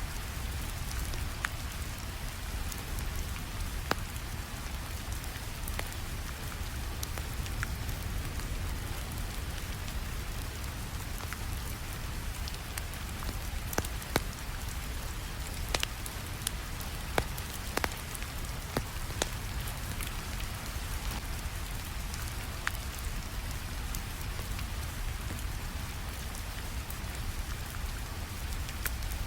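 Steady rainfall mixed with the crackle of a wood fire: sharp pops and snaps scattered over the rain, with a run of louder pops about halfway through.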